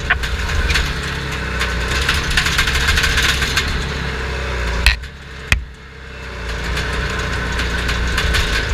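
Crawler dozer's diesel engine running hard, heard from inside the caged cab with steady clanking and rattling from the tracks and cab. About five seconds in, two sharp knocks sound, and the engine noise drops back briefly before building up again.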